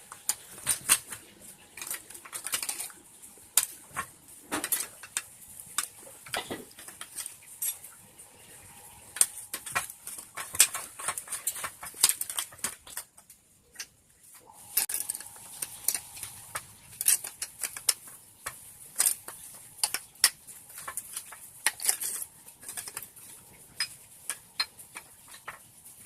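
Irregular metallic clinks and clatter of hand tools and small metal parts being handled during motorcycle work, with a brief pause about halfway through.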